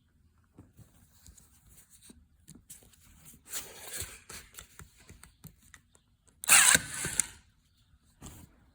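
Paper pages of a sketchbook being handled and rustling, with small clicks and a louder sudden rustle or rip about six and a half seconds in.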